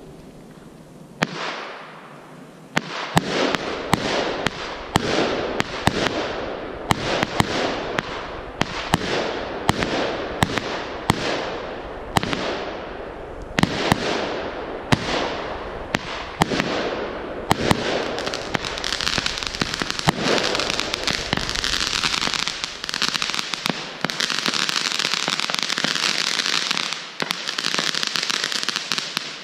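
Consumer firework battery (cake) firing shot after shot, about two sharp bangs a second, each trailing off into the sky. From about two thirds of the way in, the shots give way to a dense, continuous crackle.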